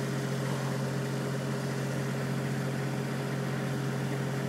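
A steady low mechanical hum at one constant pitch, unchanging throughout.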